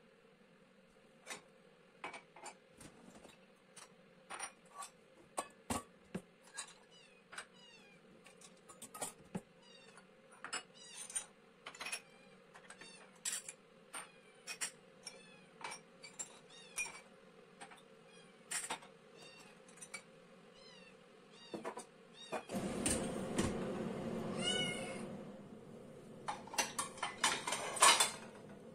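A cat meowing repeatedly in short high calls over the clicks and knocks of household objects and dishes being handled. About three-quarters of the way through comes a few seconds of rushing noise, then dishes clinking near the end.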